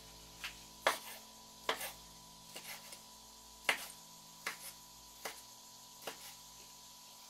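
Kitchen knife slicing a sausage into rounds on a wooden cutting board: about ten sharp knocks of the blade striking the board, at uneven intervals of under a second.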